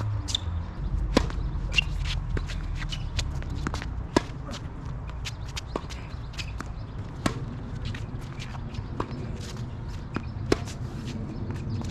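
Tennis balls being struck and bouncing on a court, sharp pops every few seconds, amid footsteps and shoe scuffs over a low steady background rumble.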